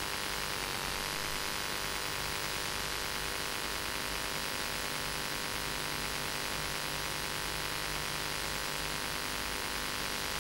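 Steady hiss with a low hum and faint steady tones underneath, with no speech. This is the noise floor of an old video recording's sound track. The tones waver briefly about a second in.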